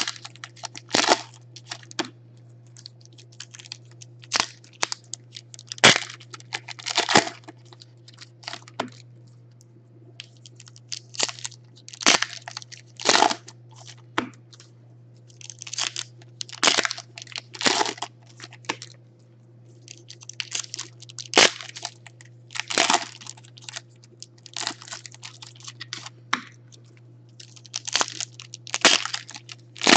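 Foil trading-card packs crinkling and being torn open by hand: irregular short crackles and rustles throughout, over a steady low hum.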